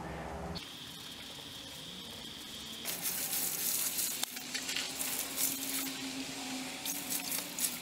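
Water poured from a bucket over a cast-iron sewing machine treadle stand, splashing and spattering onto the metal and the gravel beneath, starting about three seconds in.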